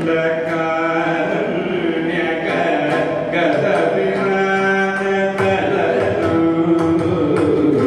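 Live Carnatic music: a male vocalist singing held notes and slides, accompanied by violin and mridangam strokes.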